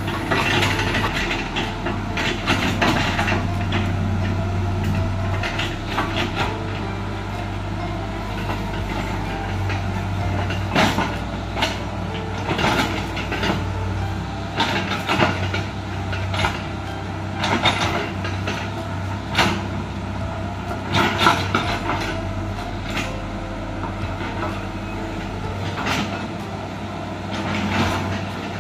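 Small tracked excavator's diesel engine running steadily under load, with frequent clanks and knocks from the machine as it spreads and levels loose earth for a road repair.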